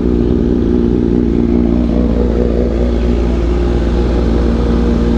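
Motorcycle engine running steadily at constant revs.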